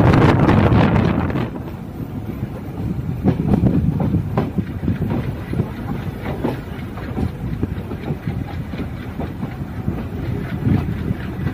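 Passenger coach wheels rumbling and clattering over the rails, with a stream of irregular clicks and knocks. Wind buffets the microphone for the first second or so, then drops away.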